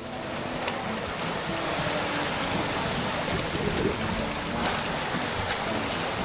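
Steady wash of choppy sea water lapping around rocks, with some wind noise on the microphone.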